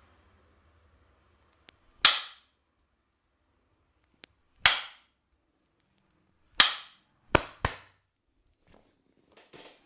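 Percussive strikes of a barber's massage: five sharp, loud cracks, each with a short ringing tail, the last two in quick succession.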